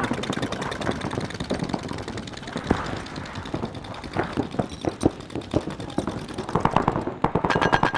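Paintball markers firing in rapid strings of sharp pops. The shots come thick at first, thin out in the middle, then pick up again near the end.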